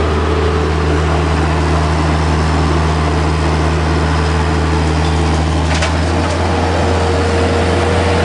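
An engine of demolition equipment running steadily at constant speed, with a single sharp knock about six seconds in.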